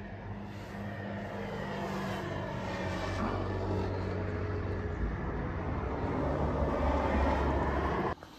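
An engine drawing steadily nearer and louder, its hum cutting off suddenly near the end.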